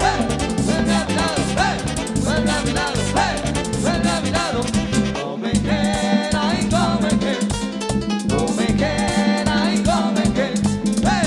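Live band playing a merengue instrumental passage, with a steady drum and percussion beat under short melodic phrases that rise and fall.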